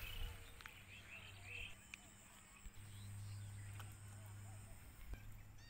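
Faint quiet outdoor ambience at a lakeshore: a few soft bird chirps in the first two seconds, then a low steady hum from about three seconds in.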